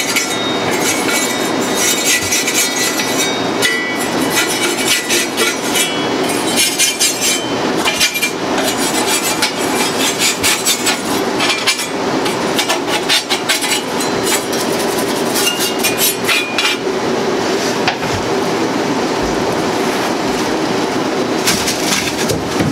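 Steel wool pad scrubbed hard back and forth over the metal burner tubes of a commercial broiler, a continuous rasping scrape broken by many small metal clinks and knocks as it works grease residue off the burners.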